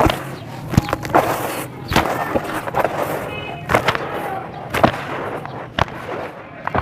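Sand-cement blocks being crushed and crumbled by hand: crunchy crumbling with a sharp crack or thud about once a second.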